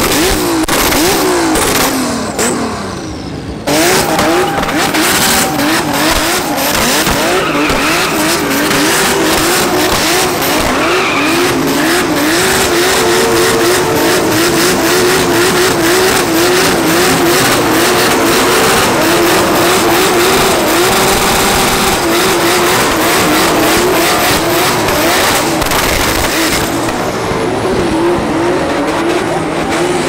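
Drift car's engine revving hard, its pitch bouncing rapidly up and down as the throttle is worked, over tyres squealing through a smoky slide. The level dips briefly a couple of seconds in, then the engine comes back in suddenly at full volume.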